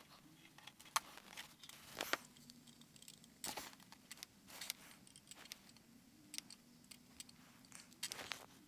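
Faint, scattered small clicks and taps of handwork while soldering component leads on a small circuit board on a wooden bench, over a faint low steady hum.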